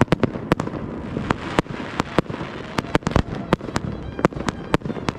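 Professional display fireworks: shells bursting in rapid, irregular succession, several sharp bangs a second, over a steady crackling hiss.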